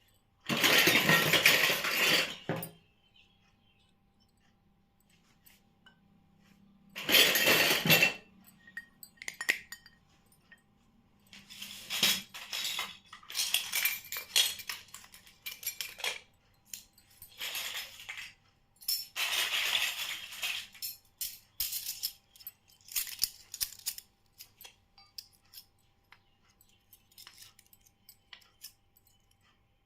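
Miniature plastic toy kitchen pieces and their packaging being handled: bursts of rustling and crinkling, with small clinks and clicks of the tiny dishes between them. The loudest bursts come right at the start and again about seven seconds in.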